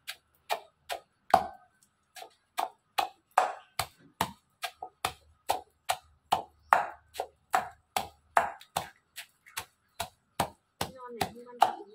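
Pestle pounding small freshwater crabs in a bowl to mash them: sharp knocks about three times a second, each with a short ring of the bowl.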